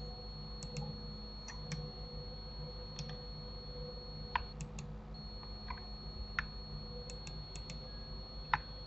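Scattered, irregular clicks of a computer mouse and keyboard, about fifteen of them, the sharpest one near the end. Under them runs a faint steady high whine and hum.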